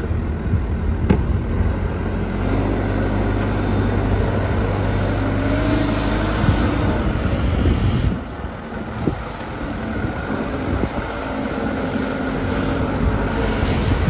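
JCB 214 backhoe loader's diesel engine running, its pitch rising and falling, with a brief drop in level about eight seconds in.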